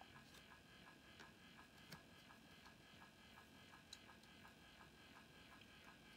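Faint whir of a small motorized turntable display stand slowly rotating a mineral specimen, with a soft ticking about four times a second and a few faint clicks.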